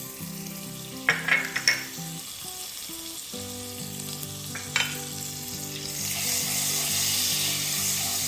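Butter sizzling as it melts in hot oil in a nonstick frying pan. The sizzle grows louder about six seconds in. A few sharp knocks about a second in come from the spoon dropping the butter in.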